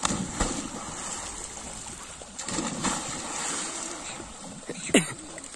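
Sheep leaping from a bank into a pond and swimming, with repeated splashes and churning water. About five seconds in comes the loudest sound, a sharp splash with a short call falling in pitch.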